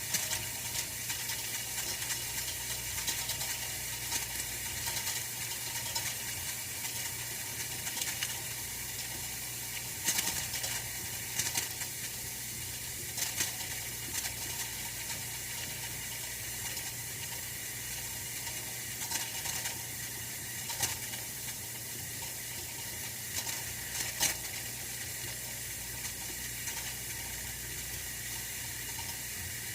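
Oil-filled radiator heater running: a steady hiss over a low hum, with scattered faint ticks and crackles from the heating oil and metal.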